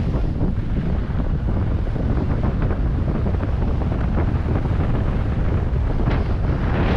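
Wind buffeting the microphone during a fast downhill ski run, over a steady hiss and scrape of skis sliding on snow. Two sharper edge scrapes come near the end.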